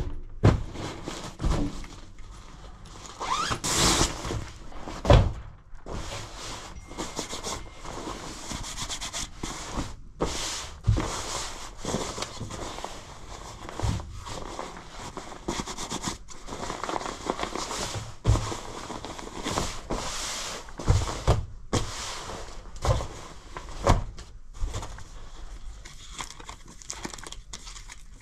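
Gloved hands handling a black membrane winter jacket, with the synthetic shell fabric rustling and crinkling in irregular bursts and occasional soft thumps and scrapes.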